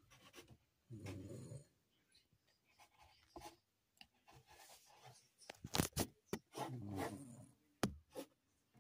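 Yorkshire terrier snoring: two snores about five and a half seconds apart, each lasting under a second. Several sharp clicks come just before and after the second snore.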